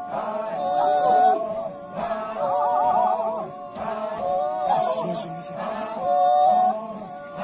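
A group of voices chanting a Sumi Naga folk-dance song in repeated short phrases, the pitch wavering and swelling every second or two.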